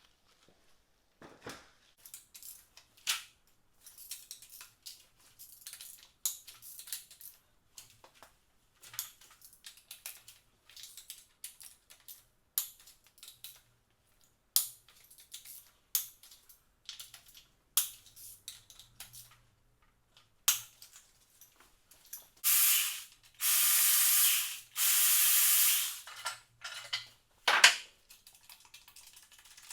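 Two hissing sprays, one about a second long and the next about two seconds, are the loudest sound; they come in the last third. Around them are scattered clicks, clinks and knocks of tools and metal engine parts being handled while the pistons come out.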